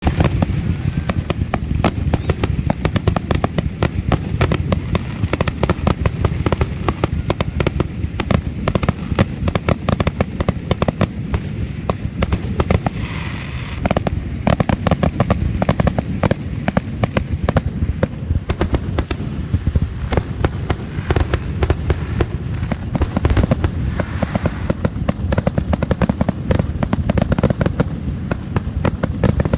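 Fireworks going off in a dense, continuous barrage of rapid bangs and crackles over a low rumble.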